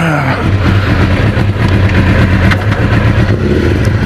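1996 Suzuki GSX-R750 SRAD's inline-four engine running at low, steady revs. Its pitch falls briefly at the very start as the revs drop.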